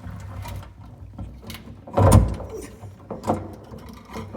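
Cordless power driver running as it drives a screw to fasten a metal electrical box, a steady motor hum for about two seconds, then a loud knock and a few smaller clunks.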